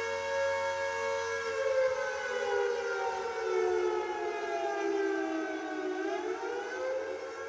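Air raid siren wailing: a held tone that slowly slides down in pitch from about two seconds in, then climbs back up near the end.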